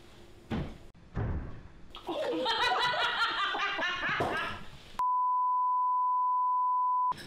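People laughing for a couple of seconds, then a steady high electronic beep, a colour-bars test tone, cuts in sharply for about two seconds and stops just as suddenly.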